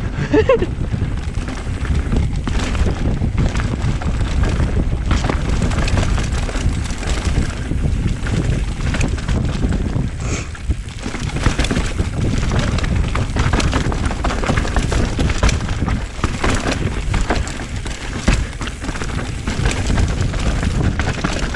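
Mountain bike descending a rough dirt trail: wind rushing over the microphone, with the rolling tyres and the bike rattling and knocking over bumps throughout.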